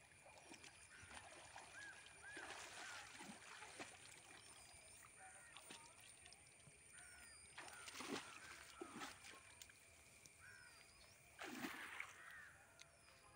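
Faint sloshing and splashing of a water buffalo wading through shallow water and stepping out onto the bank, with short bird chirps repeating in the background.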